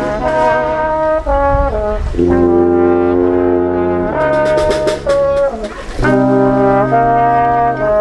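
Brass band music: a trombone with trumpet and sousaphone playing held chords that change every second or two.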